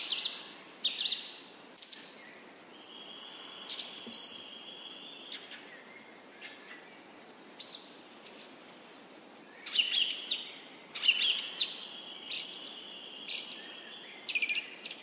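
Birds chirping: a string of short calls and quick whistled sweeps, with one note held for a couple of seconds, over a faint steady hiss.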